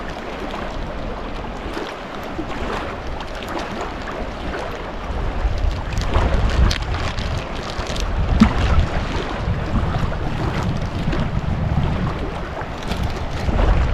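Wind gusting on the microphone over the steady wash of a wide, fast-flowing river. The low wind rumble grows stronger about five seconds in.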